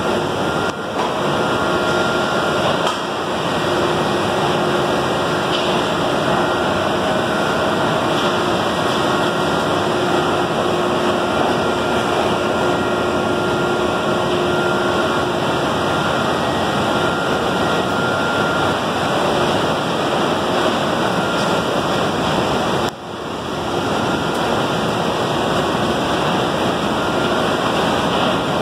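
Belt conveyor running: a steady, loud rushing noise of the moving belt over its idler rollers, with a faint steady whine mixed in through much of the first half.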